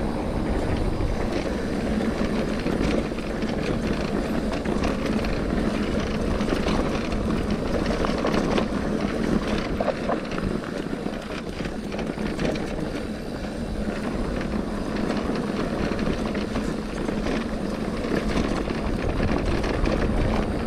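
Mountain bike rolling fast down a dirt trail: steady wind rumble on the camera's microphone, with tyres on loose dirt and the bike rattling and knocking over bumps throughout.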